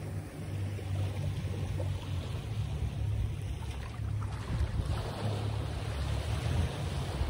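Wind buffeting the microphone outdoors: a low, fluctuating rumble with a steady hiss over it.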